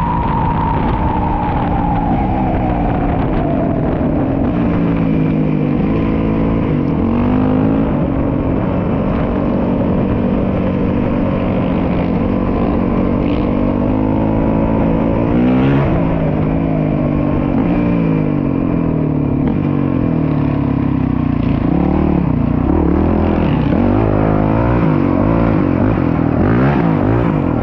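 Single-cylinder four-stroke dual-sport motorcycle engine running under way. Its pitch falls over the first few seconds as the bike slows, then keeps rising and falling with throttle and gear changes.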